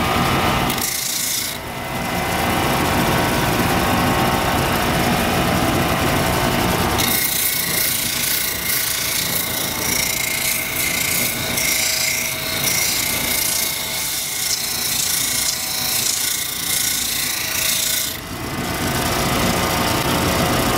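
Homemade lapidary polishing machine's motor running steadily while a chrysocolla nugget is ground wet on its spinning 100-grit wheel. A coarse grinding noise comes in briefly about a second in, then holds from about seven seconds in until near the end, while the stone is pressed against the wheel.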